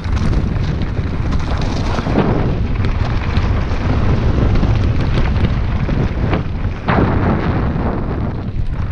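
Heavy wind buffeting on an action camera's microphone as a bicycle rolls over a stony ridge trail, with knocks and rattles from the bike hitting rocks, the clearest about two seconds in and near seven seconds in.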